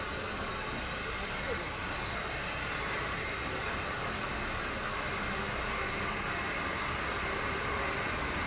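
Train running, a steady rumble and hiss with no distinct beats, slowly getting a little louder.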